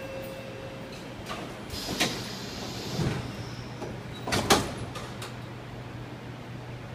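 Sliding doors of an SMRT C751B train and the platform screen doors closing, with several knocks as they shut, the loudest about four and a half seconds in, over a steady low hum.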